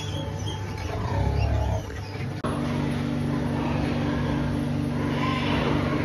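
A few faint squeaks from piglets over a low rumble. About two and a half seconds in, this cuts to a steady low mechanical hum with several held tones.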